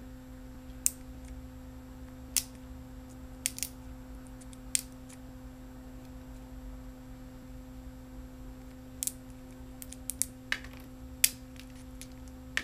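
Hand snips cutting through cured resin support pillars on an SLA 3D print, giving about ten sharp snaps at irregular intervals with a pause of a few seconds in the middle. A steady low hum runs underneath.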